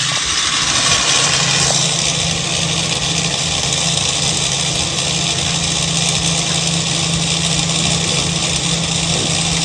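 An engine running steadily, with a constant low hum under a broad hiss.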